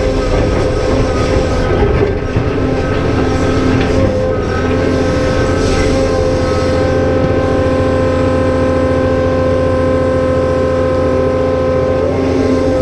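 Cat 390F excavator's diesel engine running hard under load, with the steady whine of its hydraulic pump over it. The whine drops briefly about two seconds in, and there are a few short noises from the working machine.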